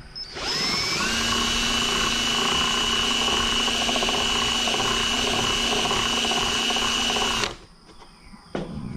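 Electric drill spinning up to speed about a second in, running at a steady pitch while boring a hole in a center console for a USB port, then stopping abruptly near the end. A few clicks and knocks follow.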